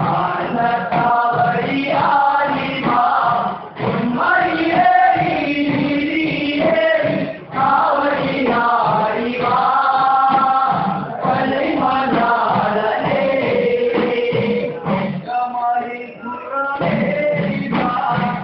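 A group of men singing a Malayalam chindu devotional song in chorus, phrase after phrase in unison.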